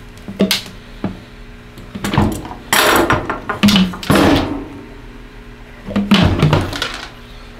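Handling noise from a Van Dorn water sampler being reassembled: pliers clicking and scraping on the metal end fitting and the plastic end cap, with a series of irregular knocks, clicks and rustles as the parts are tightened.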